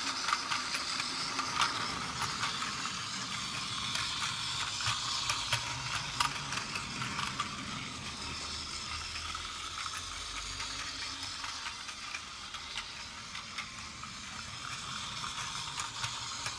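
Battery-powered Plarail toy train running on plastic track: a small geared motor whirring, with many light clicks of the wheels and cars over the track joints.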